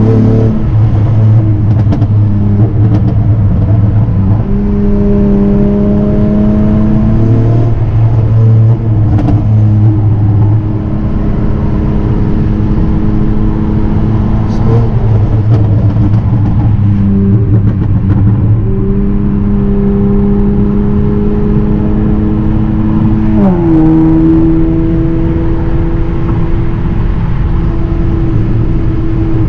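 Honda Accord V6 engine and exhaust running through catless downpipes (precat deletes), loud, with the revs stepping up and down through gear changes and a falling drop in revs about 23 seconds in.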